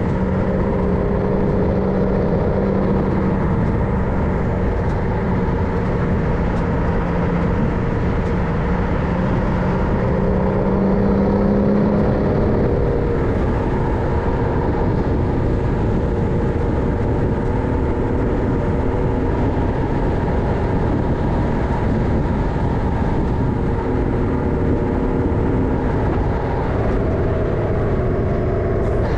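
MAN LE280B 4x4 truck's diesel engine running steadily as the truck drives, a loud continuous drone whose pitch rises slightly and then shifts after about twelve seconds.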